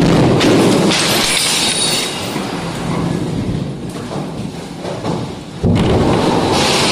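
Controlled demolition of a concrete overhead water tank: the blast's loud noise at the start easing into a continuous rumbling of breaking and falling concrete, then a second sudden loud crash about five and a half seconds in as the structure comes down.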